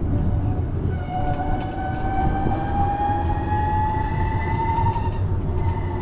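Sightseeing cart in motion: a motor whine that slowly rises in pitch as it gathers speed, over a steady low rumble.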